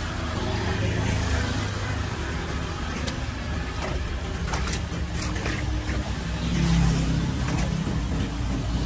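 Low, steady rumble of a motor vehicle engine running nearby, with a few light clicks and scrapes of a tool poking at a clogged curbside drain.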